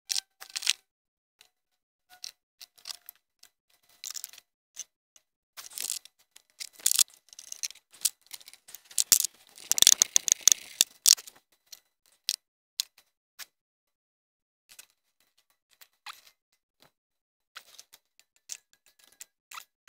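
Scattered light clicks, taps and rustles of hands and a small mirror working around a Mercedes M112 V6's valve cover while the newly fitted gasket is checked for seating, with a denser flurry about halfway through.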